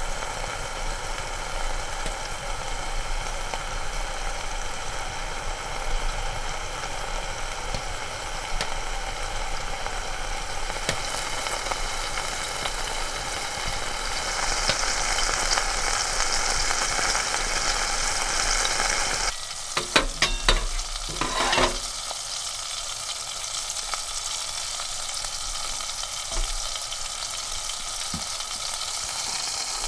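A thick hamburger patty frying and sizzling under the lid of a stainless steel frying pan on a wood stove. About two-thirds of the way in, the sizzling suddenly drops and a few sharp clicks and knocks sound over a couple of seconds, then the frying goes on more quietly.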